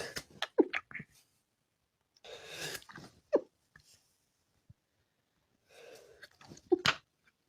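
A person sneezing in a run. The end of one sneeze comes at the start, then two more follow about three and a half seconds apart, each a breathy build-up ending in a sharp, loud burst.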